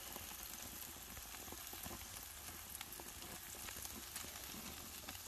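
Beef burger patties sizzling on a gas grill: a faint steady hiss with scattered small crackles.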